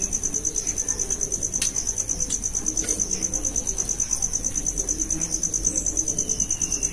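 Insects chirring in a steady, high-pitched, rapidly pulsing trill, with a few faint light clicks.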